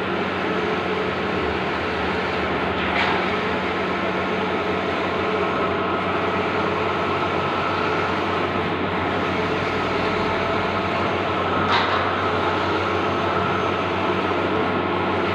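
Bluewin outdoor large-format digital printer running: a steady mechanical hum and whir, with two brief sharper sounds about nine seconds apart.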